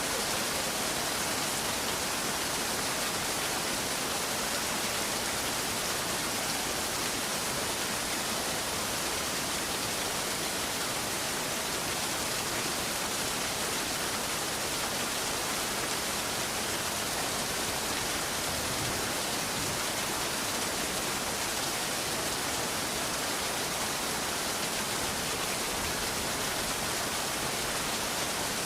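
Steady rain: an even, unbroken hiss of falling rain with no thunder in this stretch.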